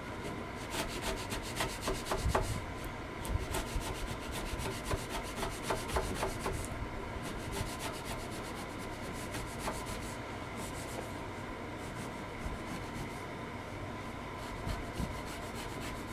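A sharp wood chisel paring and shaving wood by hand: a run of short scraping strokes through the first ten seconds or so, then thinning out.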